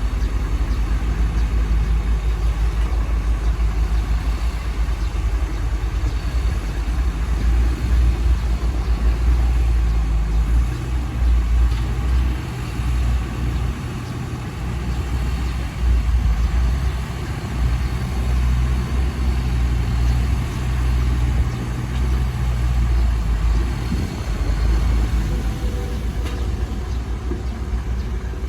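Heavy diesel engine of earthmoving machinery running continuously, its deep note rising and falling in loudness as it works.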